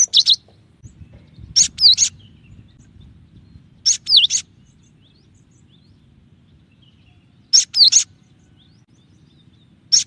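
Cinereous tit (gelatik batu) singing in short, quick bursts of a few high, sharply clipped notes, a burst every two to four seconds. A faint low rumble runs underneath.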